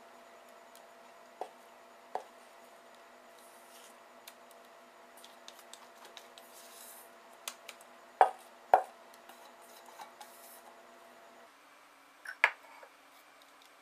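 Cake batter being scraped out of a mixing bowl into a parchment-lined baking pan: a few sharp clinks and knocks of utensils against the bowl and pan, the loudest pair about eight seconds in and another near the end, over a faint steady hum.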